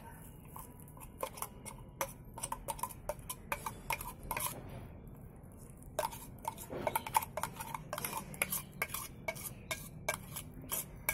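Steel spoon scraping and clinking against the inside of a stainless steel mixer-grinder jar, scooping out wet ground spice paste in irregular taps, with a short pause about halfway through.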